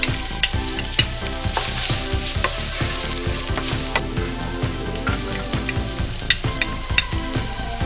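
Minced garlic sizzling as it hits hot oil in a nonstick frying pan, with chopped onion tipped in near the end. Background music with a steady beat plays quietly underneath.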